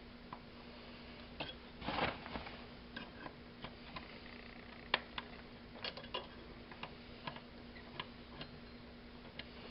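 Irregular small clicks and taps of hand tools on the rusted metal fittings of a lamp being taken apart, with a brief scrape about two seconds in and a faint steady hum underneath.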